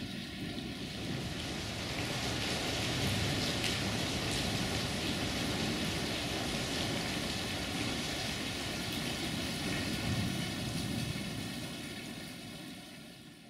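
Steady rain falling, a dense even hiss that swells about a second in and fades out at the end.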